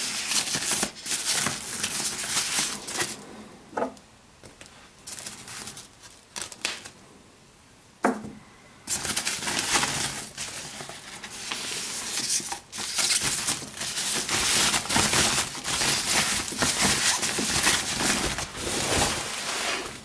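Plastic packaging wrap crinkling and rustling as it is pulled off and crumpled. It goes quiet for a few seconds in the middle, with a single sharp click, then rustles on.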